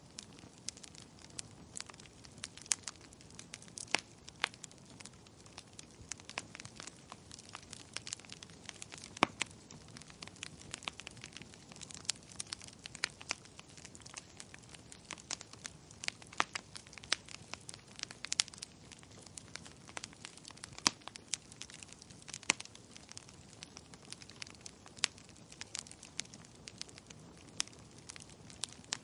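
Wood fire crackling in a fireplace: sharp, irregular pops and snaps over a low, steady hiss of burning.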